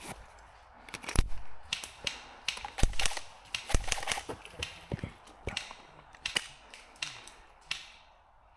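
Airsoft guns firing at irregular intervals: scattered sharp cracks, several in quick succession around three to four seconds in, growing sparser near the end.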